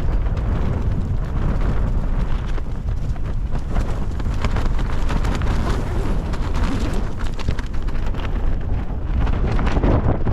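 Strong, gusting wind of about 30 mph buffeting the microphone with a heavy, continuous rumble.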